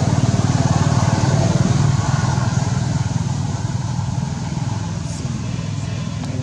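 A motor vehicle engine running close by, loudest in the first couple of seconds and then slowly fading.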